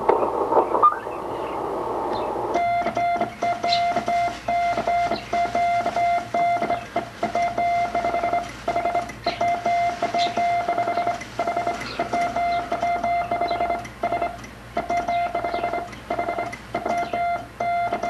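Morse code being sent on a ham radio transceiver: a single steady beep switching on and off in short dots and longer dashes. Radio hiss comes first, and the beeping starts a couple of seconds in.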